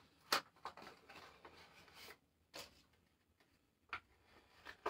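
A fishing lure in its clear plastic package being handled: a few sharp clicks and soft crinkling rustle.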